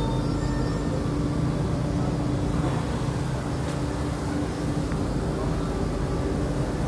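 Steady electric hum and low rumble of Delhi Metro trains, heard from inside a carriage, with a constant drone at one pitch.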